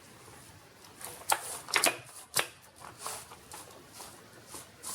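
Plastic clicks and rattles from a replacement laptop keyboard being handled and pressed into place: a few sharp clicks between about one and two and a half seconds in, then softer ones.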